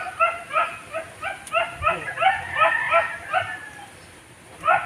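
A small dog yipping over and over, short high yips about three a second, dying away near the end.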